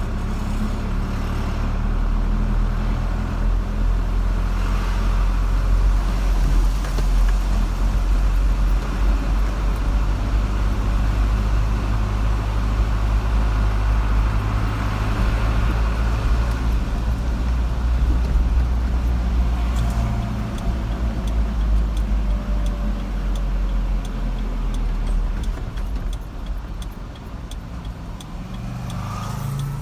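A car driving along a road: a steady low engine and road drone with tyre noise, easing a little near the end.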